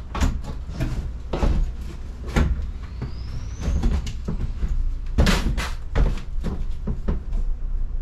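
Irregular knocks, clunks and rattles of hands working cables and wood panelling in a plywood-walled trailer, over a steady low rumble. The loudest clunks come about five and six seconds in.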